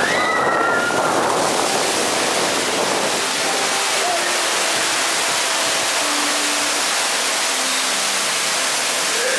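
Steady rush of falling and flowing water in a dark-ride boat channel, the water and cascades of the Pirates of the Caribbean caves.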